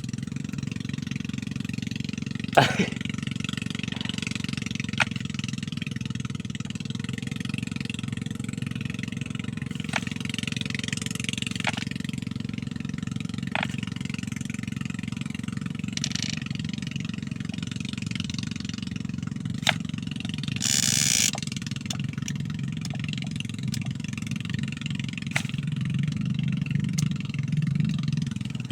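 An engine drones steadily at a low pitch, with scattered sharp clicks and a short burst of hiss about two-thirds of the way through.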